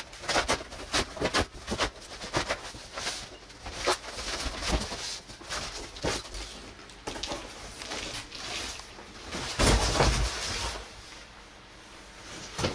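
Cardboard being handled as a large shipping box is unpacked: cardboard inserts and flaps pulled out and tossed aside, with rustling, scraping and many short knocks. A longer, louder scrape with a low thump comes about ten seconds in.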